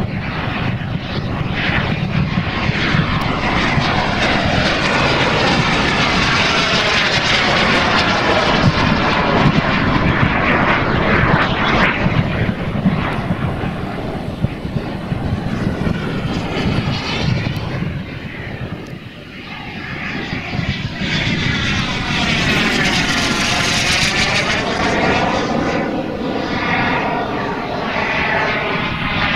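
Twin Kingtech K210 gas turbines of a giant-scale RC F-14 Tomcat jet running at flight power as it flies around overhead. The loud, steady jet noise dips briefly a little past halfway, then swells again as the jet makes another pass.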